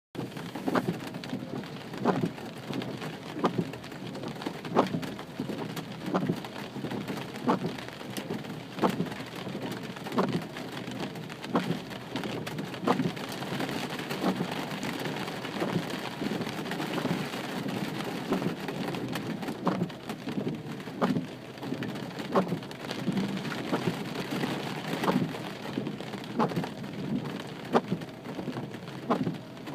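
Steady rain falling, with a short sharp knock repeating evenly about every second and a half over the top.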